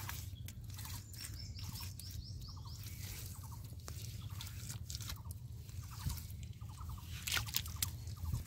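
Hand smoothing and patting wet mud plaster: soft irregular wet clicks and squelches. Birds chirp faintly in the background, with a run of high chirps about a second in.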